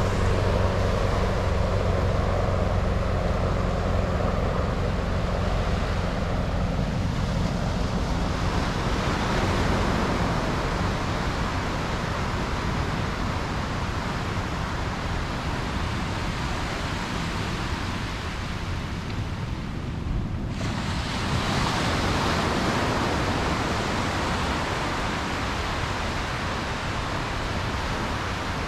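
Sea waves breaking and washing up on a sand beach, with wind on the microphone. A low steady hum sits under it for the first several seconds and fades, and the surf noise changes abruptly about two-thirds of the way through.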